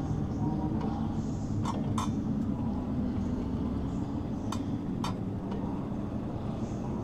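Legend race car's Yamaha motorcycle engine running at a steady pitch, with pairs of sharp clicks about every three seconds.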